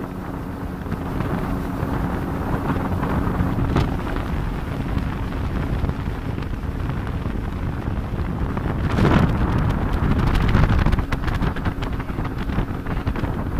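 Speedboat running at speed on a river: wind buffeting the microphone over a steady engine hum and water rushing along the hull. It grows louder about nine seconds in.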